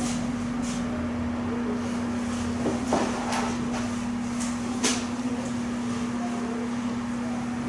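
Room tone with a steady low hum, broken by a few faint knocks about three and five seconds in.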